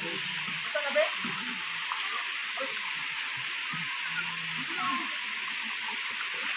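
Steady hiss of a waterfall and its stream pouring into the pool, with faint voices of bathers here and there.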